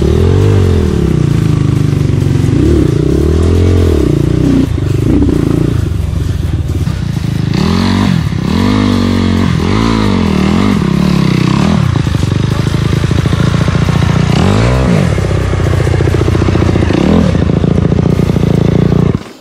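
Motorcycle engine revving up and down over and over, its pitch rising and falling with each opening of the throttle, several quick revs in a row around the middle; the engine sound drops away suddenly near the end.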